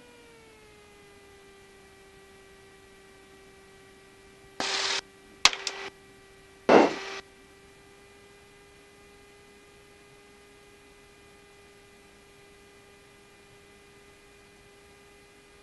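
Steady electrical hum in a Cessna 172's headset intercom audio: several evenly spaced tones that drop slightly in pitch at the start and then hold. About five seconds in, three short loud bursts of static.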